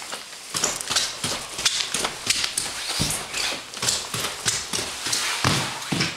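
Footsteps going down a flight of stairs and on across the floor below, quick steps about three a second.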